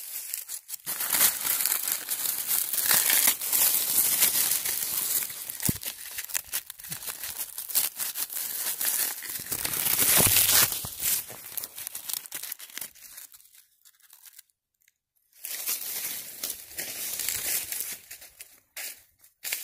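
Dry corn leaves and husks, dried out by drought, crackling and rustling in irregular bursts, with a pause of about a second roughly three quarters of the way in.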